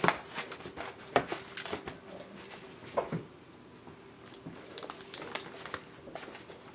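Steak knife and fork clicking and scraping against a black plastic takeout bowl while sawing through a T-bone steak, with sharp clicks about a second in and about three seconds in, then lighter ticks.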